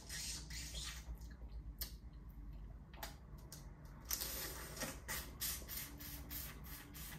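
Mouth sounds of eating a boiled crawfish held at the lips: sucking at the shell, with irregular small clicks and crackles of shell.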